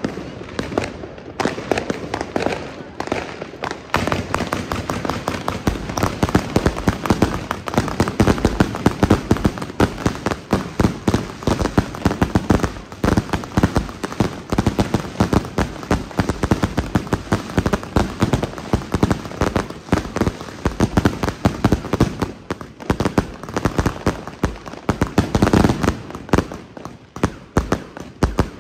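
Jorge JW4011 and Tropic TB251 consumer firework cakes fired as a salute fan: a dense, continuous rapid-fire string of shots and bangs with crackling, building up a few seconds in.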